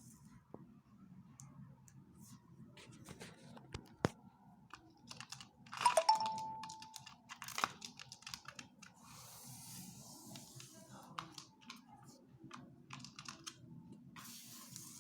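Lovebird making a run of small irregular clicks and taps, with one short, loud call about six seconds in.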